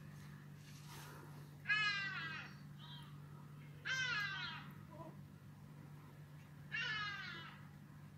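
Vervet monkey calling three times, each call a short wailing cry under a second long that falls slightly in pitch, spaced about two and a half seconds apart, over a steady low hum.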